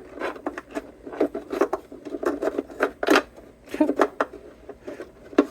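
Irregular clicks, taps and light scraping of small guitar parts and wiring being handled and pulled apart during a teardown of the guitar's electronics.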